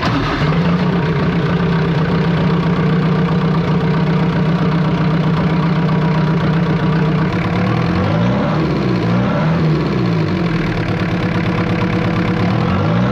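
Jeep XJ's diesel engine running at a steady idle. From about eight seconds in, its speed rises and falls several times.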